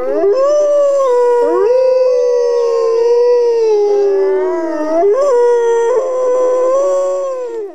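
Two wolves howling together: long, overlapping howls at different pitches that rise and fall slightly, with one quick upward swoop about five seconds in.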